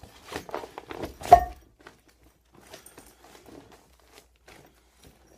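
Cast-iron weight plates clanking together as a 5-pound plate goes into a fabric bag with a heavier weight. There is one loud, briefly ringing clank about a second in, then faint rustling and shuffling as the bag is lifted.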